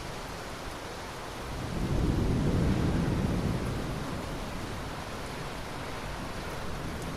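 Steady rainfall with a low roll of thunder that swells about two seconds in and fades away over the next couple of seconds.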